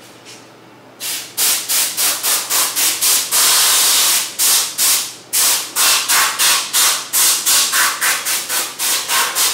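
An aerosol spray can hissing in quick short bursts, about three a second, with one longer spray of about a second near the middle.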